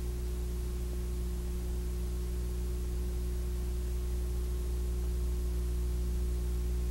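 Steady electrical hum with several fixed low tones over a constant hiss, unchanging throughout: noise from the transfer of a silent Super 8 film, which has no recorded sound.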